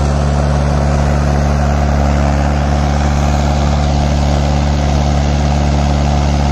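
Mahindra 585 XP Plus tractor's four-cylinder diesel engine running steadily under load, its rear wheel dug into loose soil.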